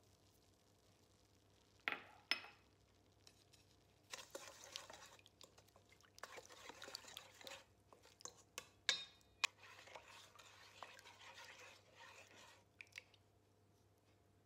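A wooden spoon stirring milk and dry yeast in a stainless steel bowl, scraping and now and then clinking against the metal sides for about nine seconds. Before it, about two seconds in, come two sharp knocks.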